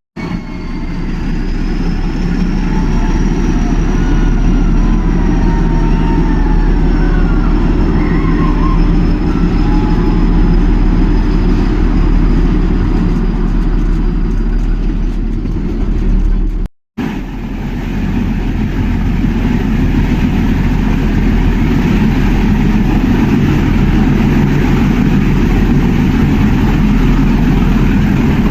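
Steady low rumble of the Nilgiri toy train running. The sound drops out for an instant about two-thirds of the way through and then resumes.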